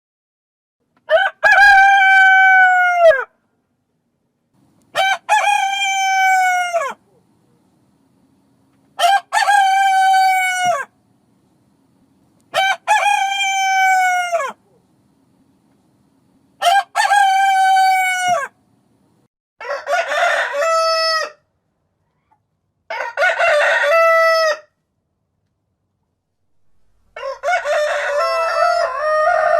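Rooster crowing over and over: about seven crows, each about two seconds long, with silent gaps between them. The first five share the same shape, while the last three are rougher and differently shaped.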